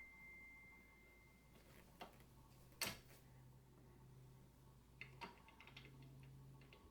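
Scattered clicks and knocks from an office chair's lever handle being worked into the tilt-mechanism socket, with one sharper knock about three seconds in and a cluster of small ticks near the end.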